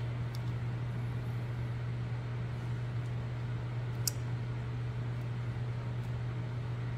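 Steady low machine hum with a light hiss, and a single faint click about four seconds in.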